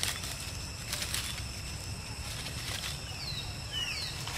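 Dry fallen leaves rustling and crackling as a macaque forages on the ground, twice in the first second or so. A few short falling chirps come near the end, over a steady low rumble.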